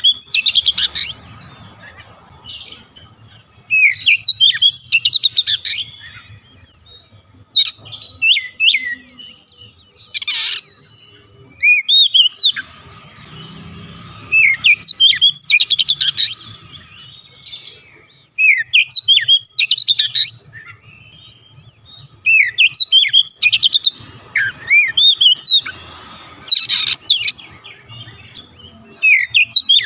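Oriental magpie-robin singing: loud phrases of rapid whistled, sweeping and trilled notes, each a second or two long, coming every few seconds with short pauses between.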